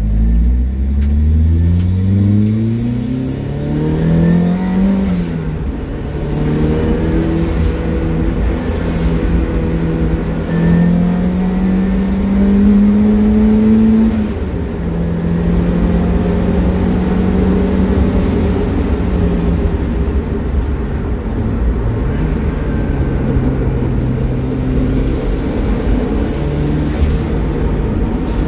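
Turbocharged Mazda MX-5's four-cylinder engine heard from inside the cabin, accelerating hard with rising revs through the first few seconds. It drops back at a gear change and then pulls at steadier revs, with a few more shifts. The turbo is set to low boost.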